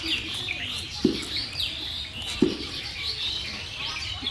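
Small birds chirping continuously in the background. Over them, two short, loud mouth sounds from someone eating, about a second in and again halfway through.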